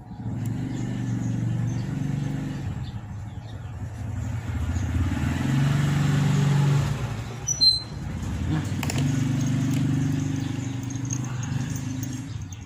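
A motor vehicle engine running nearby with a low, steady drone. It rises in pitch and level about five seconds in, drops briefly with a sharp click near eight seconds, then runs on.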